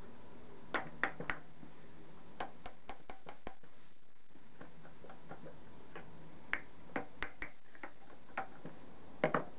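Scattered sharp metal clicks and taps of pliers and small parts being handled while the propeller is taken off a British Seagull outboard: a quick run of ticks about two and a half seconds in, and two louder clicks near the end.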